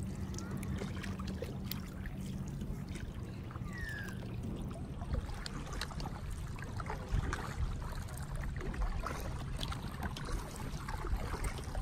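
Water trickling and lapping around a kayak's hull as it moves through shallow water, with many small ticks and splashes over a steady low rumble.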